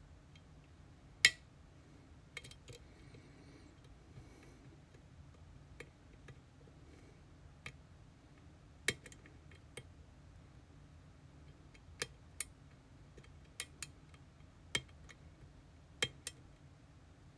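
Small, sharp metallic clicks and ticks from work on an EVVA Dual dimple-lock cylinder, coming irregularly about a dozen times with the loudest about a second in.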